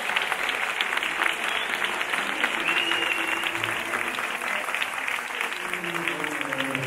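Audience applauding, with one person clapping close by.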